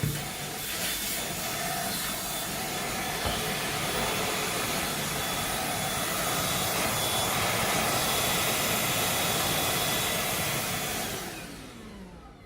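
Deerma VC20 cordless handheld vacuum cleaner running at its second power level, a steady rush of air with a faint whine. Near the end its motor winds down and stops.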